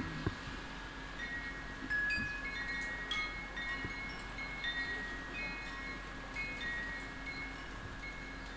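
Chimes ringing: a scatter of high, clear tones, each sounding for under a second and overlapping the next at irregular moments.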